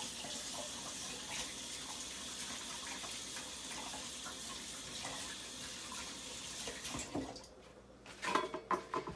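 Kitchen tap running into a sink as hands are washed under it: a steady rush of water that shuts off about seven seconds in.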